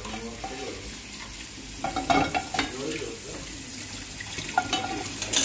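Bulgur being stirred in a frying pan of hot oil and tomato paste: a spoon scraping and knocking against the pan over a light sizzle, with sharp knocks about two seconds in and again near the end.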